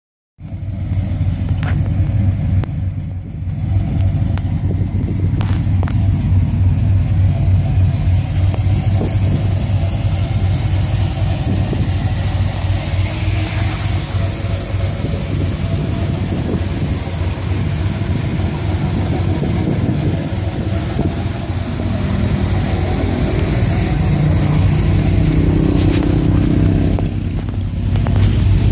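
A 2008 Chevrolet Silverado's 5.3L V8 idling steadily. The engine has an aftermarket EPS camshaft, PRC ported heads, long-tube headers and a Magnaflow muffler.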